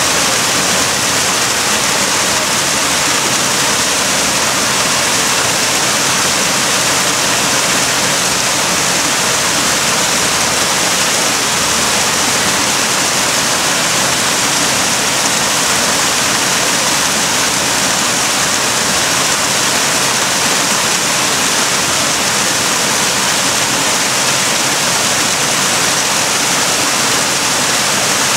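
Small waterfall pouring over rockwork into a pond: a steady, unbroken rush and splash of falling water.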